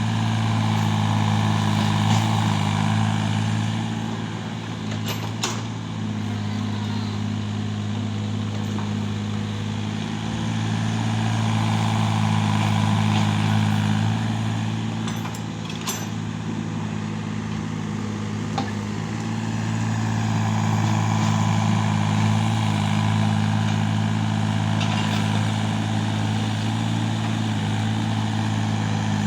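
Excavator's diesel engine running under working load, swelling and easing every several seconds, with a couple of sharp knocks.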